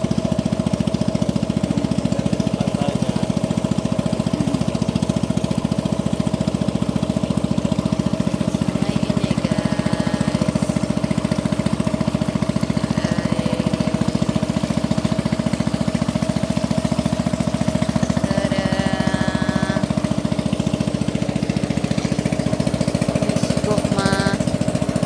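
Boat engine running steadily with a fast, even beat.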